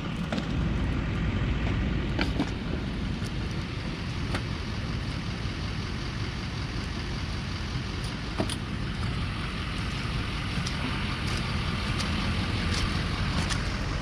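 Vehicle driving on a muddy landfill road, heard from inside: a steady low rumble of engine and tyres, with scattered sharp clicks and knocks.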